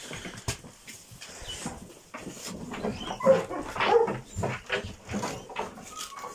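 Hunting hounds in a kennel making a run of short whines and yelps, starting about two seconds in, with a few scattered knocks from their moving about.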